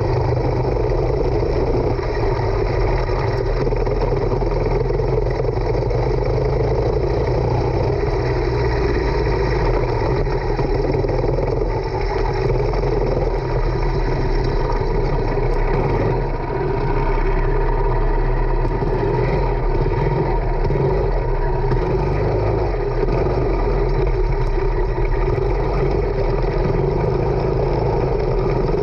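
Racing kart engine running at low, fairly steady revs while the kart slows down to pit-lane pace, heard close up from an onboard camera.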